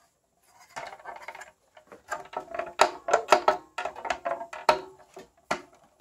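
Hard plastic knocks, clicks and rattles as a Dyson cordless stick vacuum is pushed onto the mounting bracket of a freestanding vacuum stand, a busy run of sharp knocks from about a second in until near the end.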